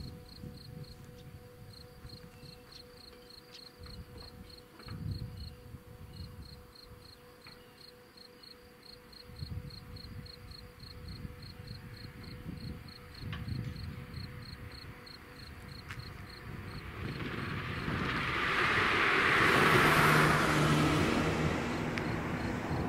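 Level-crossing warning signal ringing in quick, even, high-pitched strikes over a faint steady tone while the barriers lift, cutting off about seventeen seconds in. Then a road vehicle drives past, loudest about twenty seconds in.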